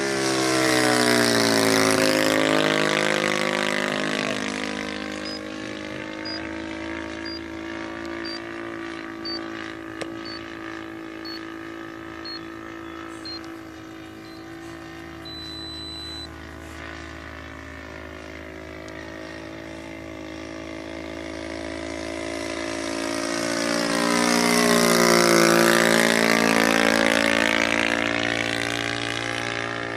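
Engine of a radio-controlled P-40 Warhawk model plane flying past overhead twice. It grows loud about two seconds in and again near the end, and its pitch drops as it goes by each time. In between it runs more quietly at a distance.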